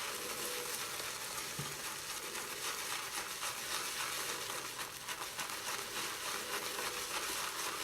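Damp shaving brush being worked hard over a puck of hard shaving soap to load it: a steady fine crackling rub of bristles on soap.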